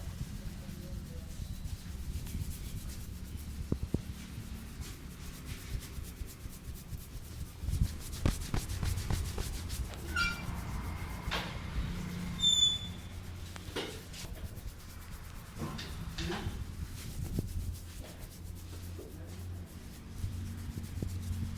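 Hands rubbing and kneading a customer's hair and scalp in a barber's head massage: a continuous scratchy rubbing, broken by scattered sharp taps.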